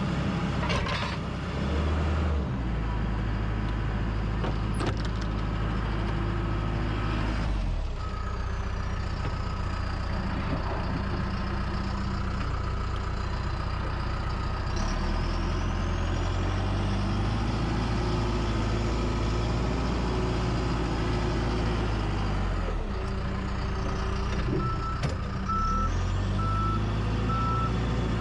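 John Deere 310K EP loader backhoe's diesel engine running under work, its speed rising and falling several times as the machine is operated. Near the end the reversing alarm starts beeping steadily as the machine backs up.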